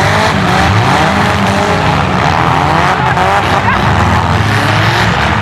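Several demolition-derby car engines revving at once, their pitches rising and falling over one another with a continuous low rumble.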